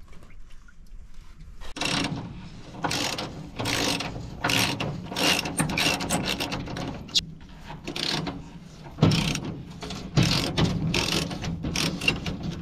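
Socket wrench ratcheting on a bolt in a dozer's steel floor plate, in short clicking strokes about once a second after a brief quiet start.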